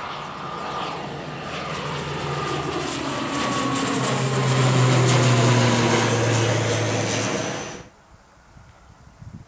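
ATR 72 twin turboprop airliner climbing out after takeoff: a steady propeller drone with an engine whine that falls in pitch as it passes, loudest about halfway through. The sound cuts off suddenly near the end, leaving only faint wind.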